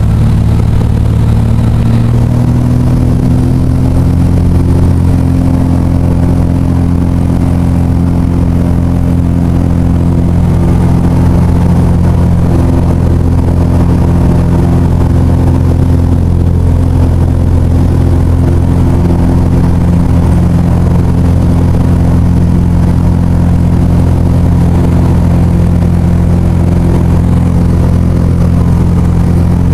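Engine of a small aircraft running steadily, heard from inside the cabin, with its pitch rising slightly about two seconds in.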